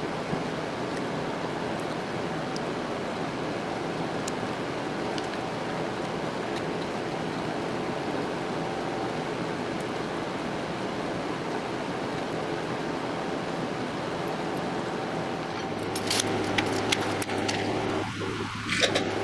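Milling machine running steadily. Near the end a deeper hum joins in and several sharp metallic clinks sound.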